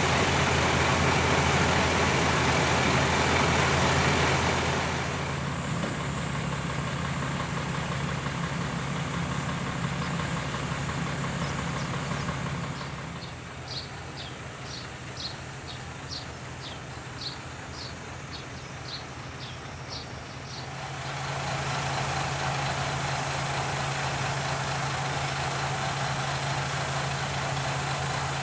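KiHa 38 diesel railcar's engine idling at a standstill, a steady low hum. It grows fainter for several seconds in the middle, when a run of short high chirps is heard, then comes back up.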